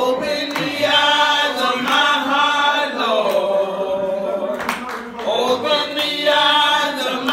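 Two women singing a gospel song together into handheld microphones, in long held notes with a wavering pitch, phrase after phrase.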